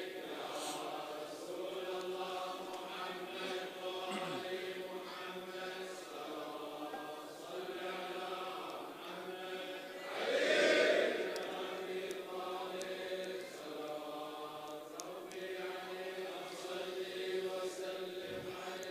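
A congregation of men chanting together in unison, faint and steady, with a brief louder swell about ten seconds in.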